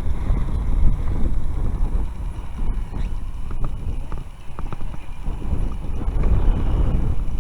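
Wind buffeting the microphone: an uneven low rumble, with a few faint clicks around the middle.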